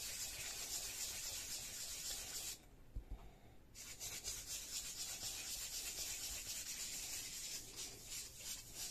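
Foam ink-blending tool rubbed over a plastic stencil on paper, a steady scratchy rubbing that is quite noisy. It breaks off for about a second a little under three seconds in, then resumes.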